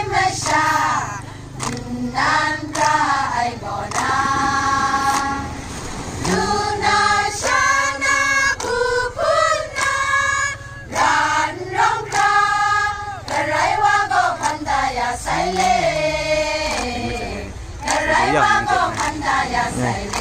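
A large group of women singing a song together in unison, with hand claps scattered through it.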